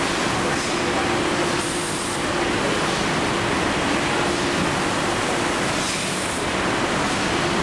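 Dairy bottling line running: steady machinery noise with a constant hum as capped plastic bottles move along the conveyor. A short high hiss comes twice, about two seconds in and again about six seconds in.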